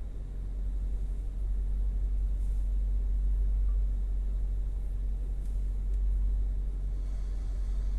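Suzuki Swift Sport ZC32S's 1.6-litre four-cylinder engine running steadily at idle, heard as a low rumble with no high-pitched whine.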